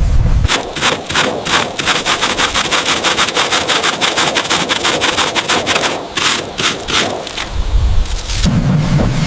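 Rapid rhythmic scraping, about five strokes a second, with a brief break about six seconds in. The strokes stop after about seven seconds, and a low rumble rises in their place near the end.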